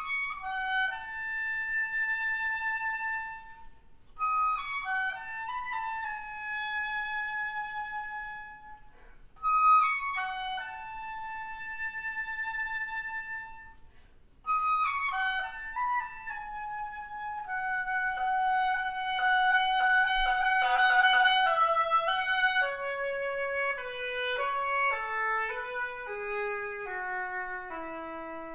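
Solo oboe playing unaccompanied: three similar phrases, each ending on a long held note, then a longer passage that steps down note by note to a low note near the end.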